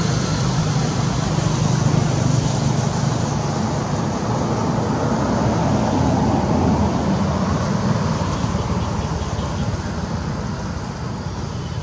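Steady low background rumble that eases a little in the last few seconds.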